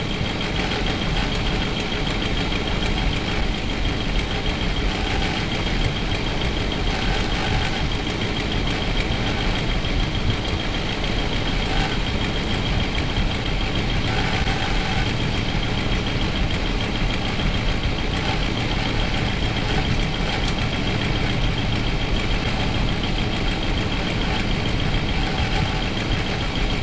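A motorhome's carbureted gasoline engine idling steadily at operating temperature, heard up close through the open engine cover in the cab. It is left running so the rebuilt automatic transmission's fluid level can be checked on the dipstick. A faint steady high whine sits above the engine note.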